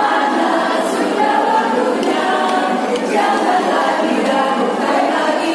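A women's choir singing a march song together, many voices continuing without a break.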